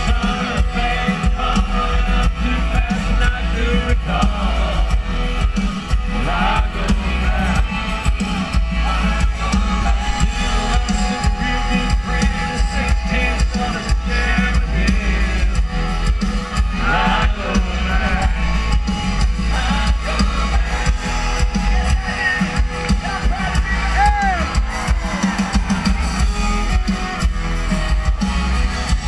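Country band playing live through a concert sound system, with drums and electric guitar, heard from within the crowd.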